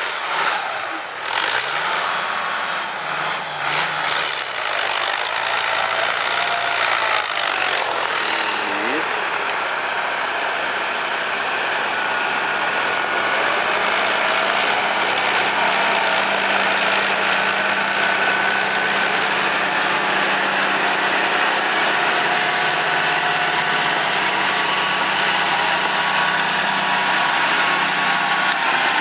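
Case IH farm tractors' diesel engines running steadily under load while working a field. The sound changes about eight seconds in, then holds steady.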